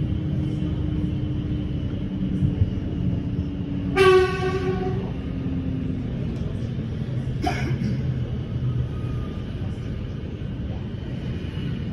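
Steady rumble of a suburban electric train heard from inside the carriage, as another train passes alongside. About four seconds in, a train horn sounds once for about a second, the loudest sound here, and a brief sharp sound follows a few seconds later.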